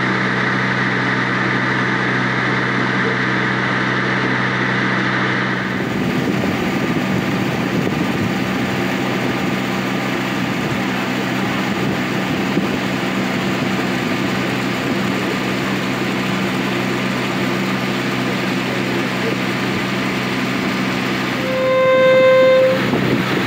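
Passenger boat's engine humming steadily with water rushing along the hull, the hum giving way to mostly water and wind rush about six seconds in. Near the end the boat's horn sounds once, a steady blast of about a second.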